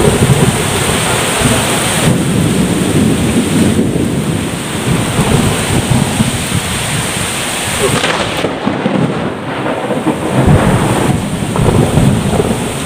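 Violent whirlwind storm: strong gusting wind with heavy rain, the wind buffeting the microphone in a loud, unbroken rumble that swells and eases.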